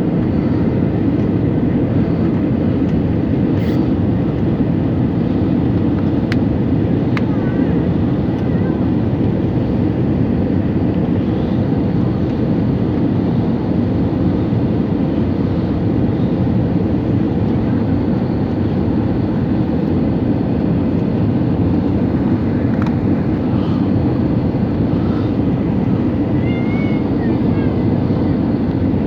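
Airplane cabin noise heard from inside the cabin in flight: a loud, steady low rumble of engines and airflow that does not change.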